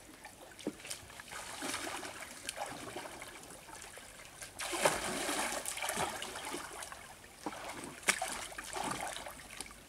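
Pond water splashing and sloshing as people wade through it and drag a fishing net, with a louder burst of splashing about five seconds in and a sharp slap of water about eight seconds in.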